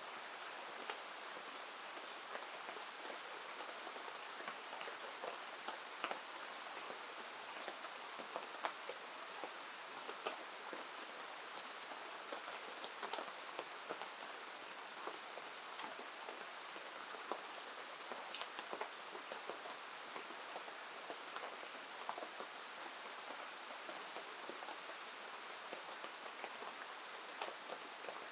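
Steady rain falling, a continuous hiss sprinkled with many small, sharp drop ticks.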